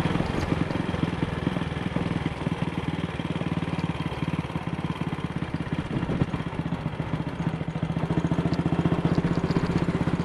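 AJS Model 8 single-cylinder four-stroke motorcycle engine running under way, with an even train of firing pulses and a slight rise in level about eight seconds in. It fires evenly with no misfire, its carburettor needle clip having been reseated after it was found twisted and flooding the engine with petrol.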